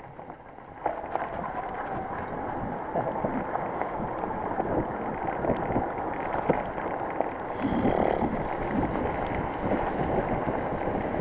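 Mountain bike ridden fast down a wet, leaf-covered dirt trail: a steady rush of tyres on the ground and wind on the microphone, with many small clicks and rattles. The noise grows louder about a second in.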